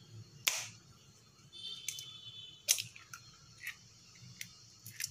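An egg cracked open with a knife over a stainless steel bowl: a sharp crack about half a second in, a second one a couple of seconds later, then a few lighter clicks of shell and blade.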